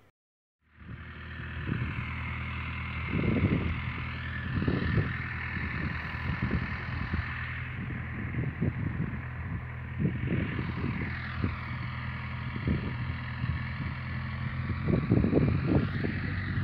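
Tractor engine running steadily, with wind buffeting the microphone in irregular gusts.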